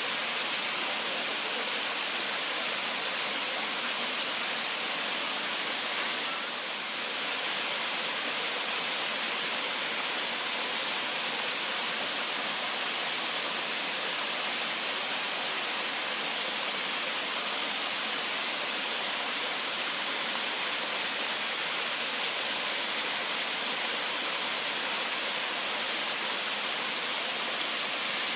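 Steady rush of falling water from Kaaterskill Falls, an even, unbroken roar of water.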